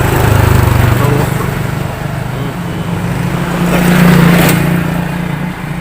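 A motor vehicle running close by, its engine hum and road noise swelling to a peak about four seconds in, then fading.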